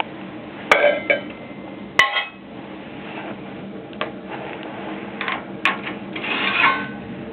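Sharp metallic clanks and clinks, several of them ringing briefly, from a homemade sheet-metal wood stove being handled. There are a handful of separate knocks spread over the few seconds, and a longer scraping clatter near the end.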